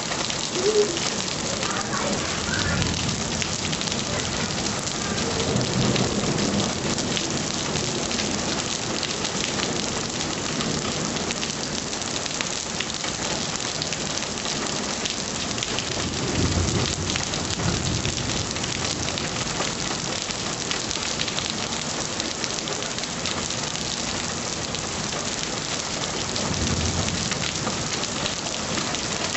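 Heavy rain pouring down steadily in a dense hiss, with low rumbles swelling up a few times, most strongly about 16 seconds in.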